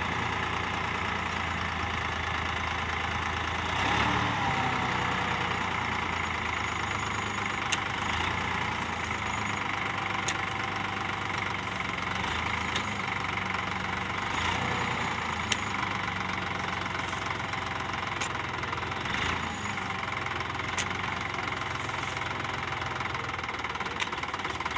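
Sonalika tractor's diesel engine running steadily while it drives the hydraulic tipper that lifts the loaded trolley bed to dump soil, with a few short sharp knocks along the way.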